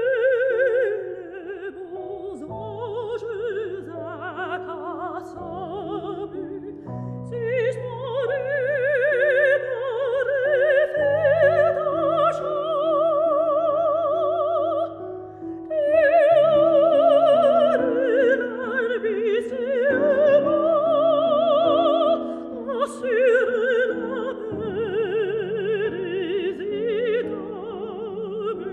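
Classical soprano singing a French art song with piano accompaniment. She holds long notes with a wide vibrato over sustained piano chords.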